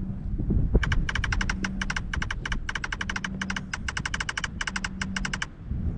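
Ghost-communication app on a phone playing a rapid string of short electronic beeps, about eight a second, for nearly five seconds over a low rumble. This is the app's 'receiving response' signal before it reads out a reply.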